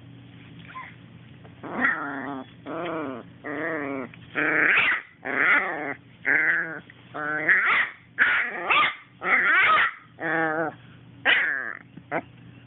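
A dog whining in a run of about a dozen short calls, each under a second and bending in pitch, starting about two seconds in.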